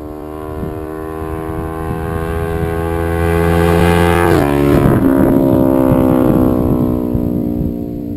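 Kawasaki Ninja 250R's parallel-twin engine, breathing through a Level One Racing slip-on exhaust, as the motorcycle rides past. The engine note grows louder as the bike approaches. About halfway through it drops in pitch as the bike passes, then fades away.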